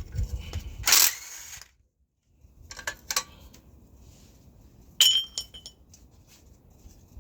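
Metal hand tools and bracket hardware clinking and clattering while an engine bracket is unbolted. There is a loud scrape about a second in, scattered small clicks, and a sharp clink with a brief metallic ring about five seconds in.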